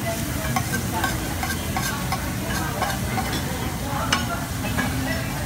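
Metal tongs and kitchen scissors clicking and scraping against a tabletop Korean barbecue grill pan and plates, over a steady sizzle of food frying in the pan. One sharper clack comes about four seconds in.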